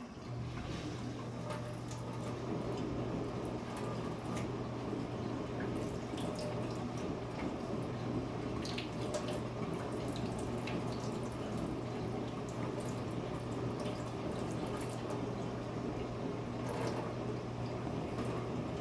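Tap water running steadily into a sink, with scattered small splashes and drips.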